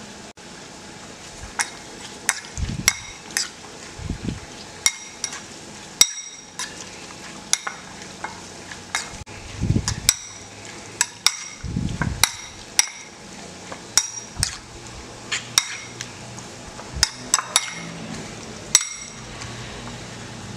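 A metal fork tossing sliced cucumber in a soy sauce dressing inside a ceramic bowl: about twenty sharp, ringing clinks of the fork against the bowl at an irregular pace, with a few wet squelches of the slices between them.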